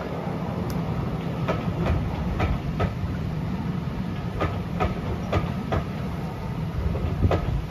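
Railway passenger coaches rolling past, their wheels clicking over the rail joints in pairs about half a second apart, a clickety-clack over a steady low rumble.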